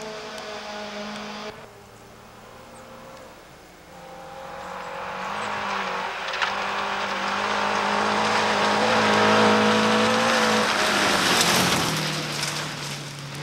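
Rally cars on a gravel forest stage: one car's engine fades away, then another car's engine approaches at steady high revs, growing louder. It passes close about 11 seconds in with a rush of gravel and tyre noise, and its pitch drops as it pulls away.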